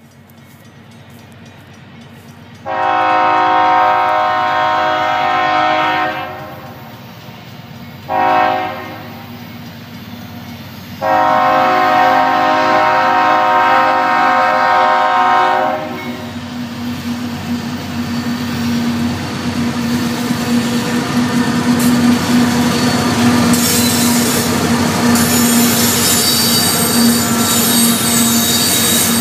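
Diesel freight locomotive's multi-chime air horn sounding three blasts, long, short, long, as it approaches. Then the locomotive and a string of tank cars roll past with steady wheel and rail noise and a low steady tone.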